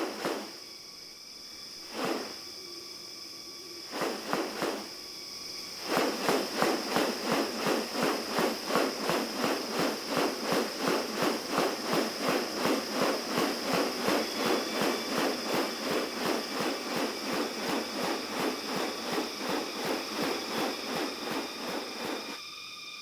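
Rainforest ambience: a steady high insect drone, a few sharp clicks in the first few seconds, then from about six seconds in an even, rapid series of rasping pulses, about two to three a second, from an unseen animal.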